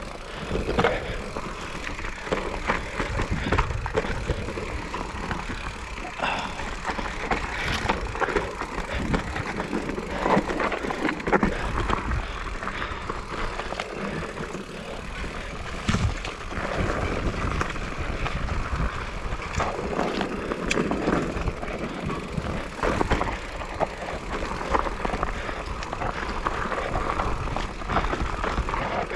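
Mountain bike riding down a dirt trail: tyres running over dirt and stones, the bike rattling and knocking over bumps, with a steady low wind rumble on the microphone.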